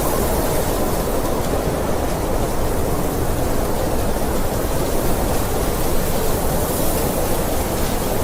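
Snowstorm wind blowing steadily, a dense low noise with a fainter hiss above it and no breaks.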